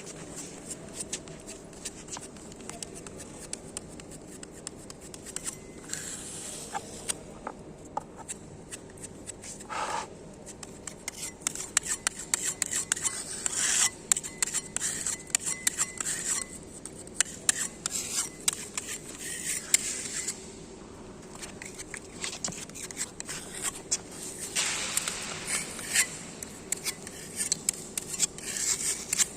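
Repeated scraping and rubbing on concrete, a tool spreading and levelling filler over a crack in a concrete slab, with scattered clicks and taps. The scraping comes in bouts, loudest about halfway through and again near the end.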